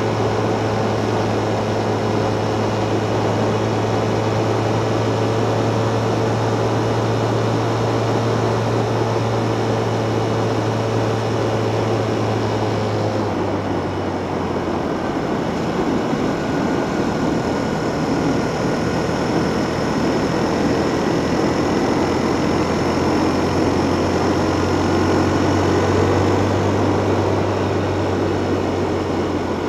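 Steady ride noise on a mountain bike's action camera, likely wind on the microphone and tyres rolling, with a low steady hum that drops slightly in pitch about 13 seconds in.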